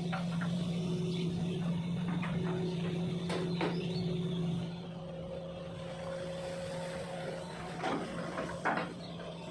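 Long-reach excavator's diesel engine running steadily, its note easing off about halfway, with several short metallic knocks and clatters from the machine.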